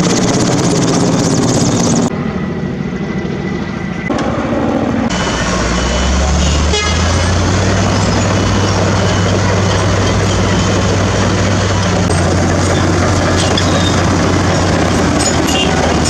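Helicopter overhead for the first couple of seconds. Then the steady low drone of heavy diesel engines from forest-fire trucks running and moving off, which holds from about five seconds in.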